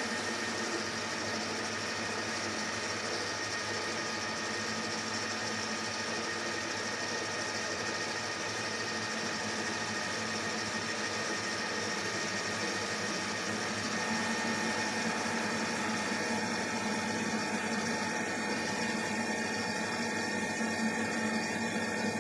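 Soviet-built metal lathe running steadily with an even mechanical hum while turning a part. About two thirds of the way through, its lower hum grows a little stronger.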